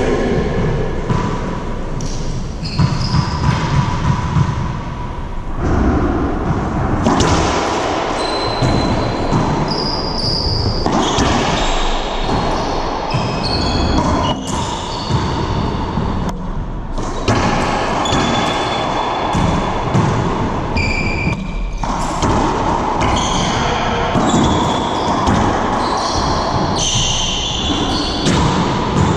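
Doubles racquetball play: the rubber ball smacking off racquets, walls and floor, with short high squeaks of sneakers on the hardwood, all echoing in the enclosed court.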